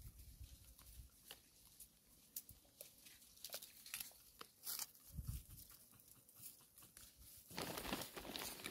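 Faint crackling and tearing of grass and leaves as hamadryas baboons forage close by, with scattered small clicks and a louder stretch of rustling near the end.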